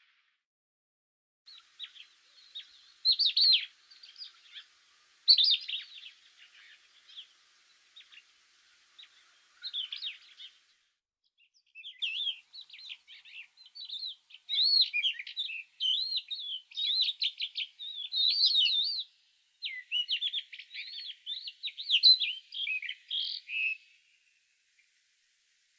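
Small songbirds singing: quick chirps and twittering phrases, broken by a short pause about eleven seconds in and stopping shortly before the end.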